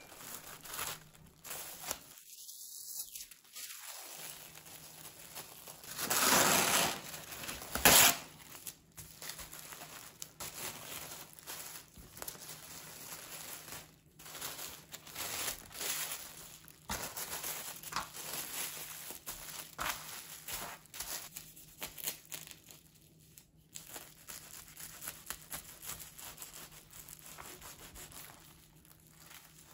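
Plastic cling wrap crinkling and rustling as it is wrapped tightly around a sandwich, with the loudest rustling about six to eight seconds in.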